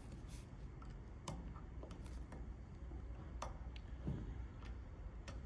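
Faint, scattered clicks and light taps of a hand tool and small metal parts being handled while a car starter motor is taken apart, over a low steady hum.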